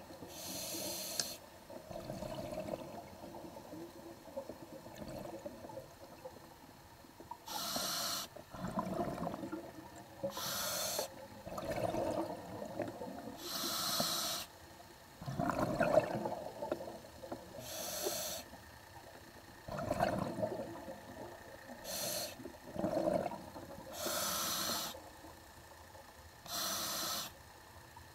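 Scuba diver breathing through a regulator underwater: hissing inhales alternate with bubbling exhales, about one breath every three to four seconds, with a pause of several seconds after the first breath.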